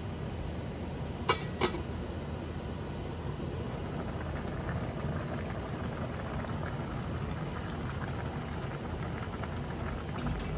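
Steady bubbling of liquid, as at a simmer, with two sharp clicks a little over a second in and faint crackling later.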